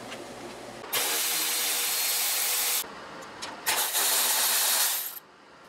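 Power ratchet running in two bursts of about two seconds each, loosening fasteners on a Porsche 911 Turbo's intercooler, with a motor whine under a high hiss.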